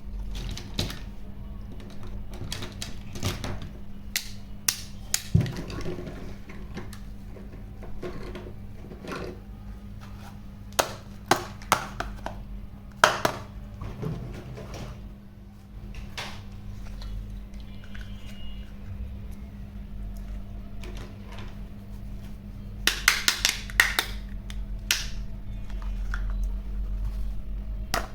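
Hard plastic toys being handled, with irregular clicks and clatters that come in quick clusters twice, over a steady low electrical hum.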